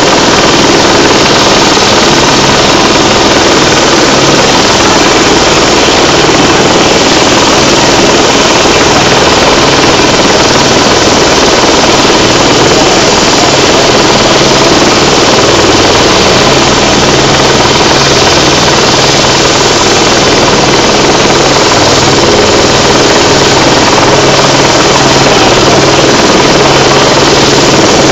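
Rescue helicopter hovering close by: loud, steady rotor and turbine engine noise.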